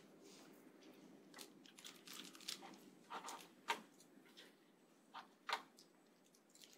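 Near silence: faint room hum broken by scattered soft clicks and rustles, the strongest about halfway through and again near the end.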